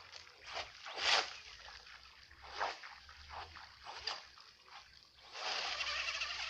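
Radio-controlled boat splashing across the water in a series of short bursts, then a longer rush of spray and splashing near the end.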